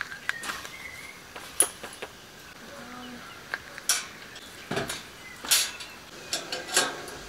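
Metal wire panels of a puppy playpen clinking and rattling as they are unfolded and set in place, with a string of sharp metallic clanks spread through.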